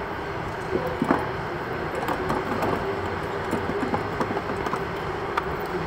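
Electric go-kart rolling slowly into the pit lane and coming to a stop behind another kart: a steady electric motor hum and rolling noise, with scattered knocks and rattles from the kart's body.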